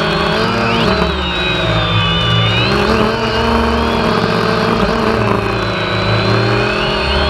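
Quadcopter drone's electric motors and propellers whirring close up, a steady multi-toned buzz whose pitch drifts up and down as the drone manoeuvres.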